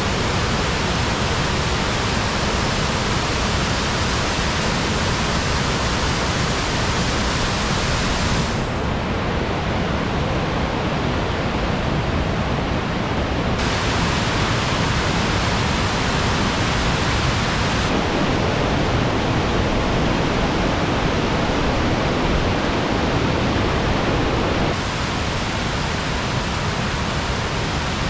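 Waterfall cascading over rock ledges: a loud, steady rush of falling water. Its tone changes abruptly several times.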